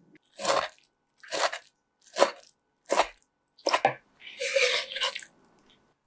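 A kitchen knife chopping spinach on a wooden cutting board: about five separate chops a little under a second apart. Then a longer scraping, rustling sound follows about two-thirds of the way through.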